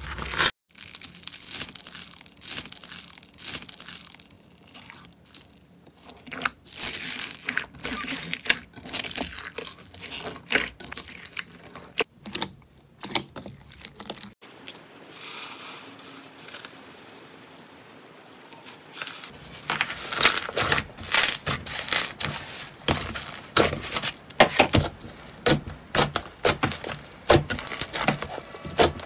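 Slime being squeezed, pressed and folded by hand, giving irregular squelching crackles and pops. The sound eases to a softer, quieter squish about halfway through, then turns to louder, denser pops for the rest.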